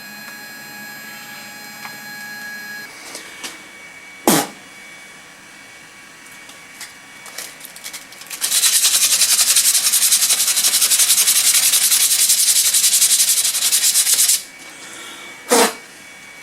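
Small 3018 CNC router's spindle and stepper motors whining steadily, then stopping about three seconds in. Later comes a loud, rasping hiss with a fine rapid flutter, lasting about six seconds, and two short sharp whooshes falling in pitch.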